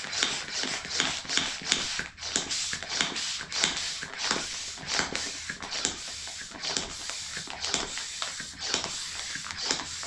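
Plastic hand pump on a vacuum storage bag being worked up and down in a quick, steady rhythm, each stroke a short hiss of air drawn out through the valve as the bag tightens down around the clothes inside.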